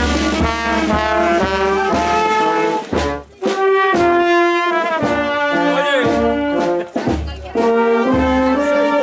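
Marching brass band playing a tune: trombones, trumpets and saxophone over a bass drum, with two short breaks between phrases, about three seconds and seven seconds in.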